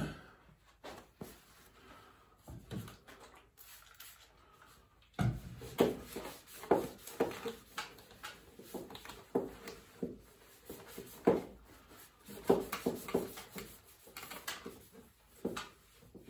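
Irregular knocks and clunks of the fiberglass headlight housing being handled and set about, starting about five seconds in after a quiet stretch.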